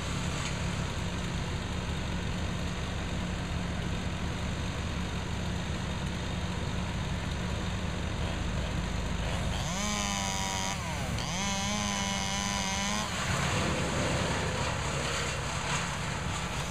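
Steady engine drone of a wood chipper and idling saws, with a chainsaw revved to full throttle about ten seconds in for some three seconds, dipping briefly in the middle, then dropping back.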